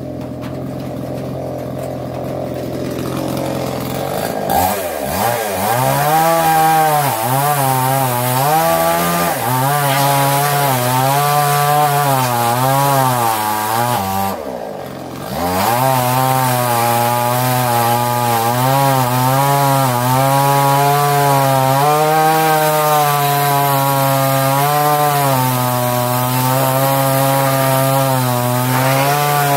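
Huyosen 6020 Pro 60 cc two-stroke chainsaw cutting wood, its engine pitch wavering up and down as the chain bites under load. About halfway through the engine note falls away for a moment, then picks back up into the cut.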